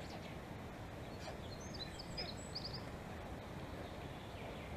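Steady forest background noise, with a small songbird giving a quick run of short, high chirps from about one to three seconds in.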